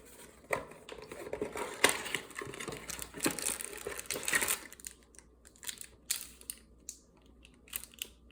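Hard plastic packaging of a trading-card hanger box being pried and twisted open by hand: dense crinkling and cracking for about four seconds, then scattered clicks and taps.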